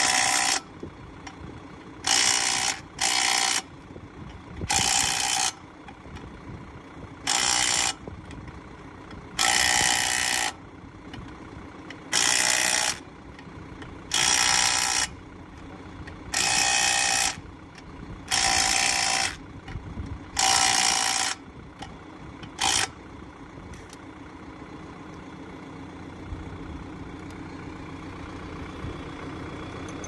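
Cordless impact wrench hammering on the lug nuts of a centre-pivot irrigator wheel. It runs in about a dozen short bursts, each about a second long and roughly two seconds apart, that stop about 23 seconds in.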